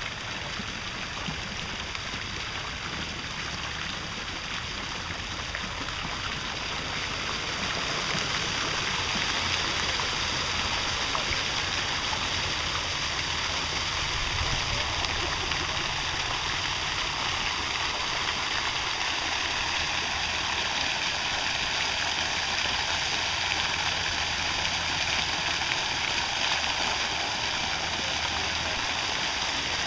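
Garden fountain jets splashing steadily into a pool, a continuous rush of falling water that grows somewhat louder about eight seconds in.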